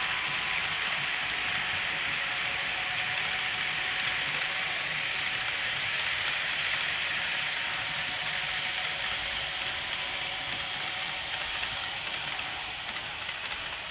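HO-scale model freight cars rolling past on the track: a steady rush of metal wheels on rail with fine clicking, easing off near the end as the last cars go by.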